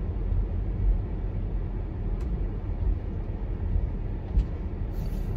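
Low rumble of a car running, heard from inside the cabin as it is being parked, with a faint click about two seconds in and a short thump a little past four seconds.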